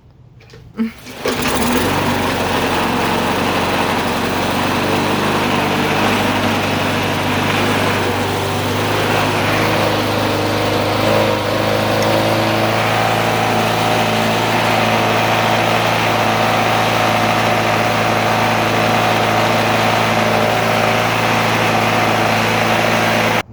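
Toro lawn mower engine catching about a second in and running steadily at speed, then cut off abruptly at the end. It is the first sustained run after a no-start blamed on stale, gummed-up fuel in the carburetor.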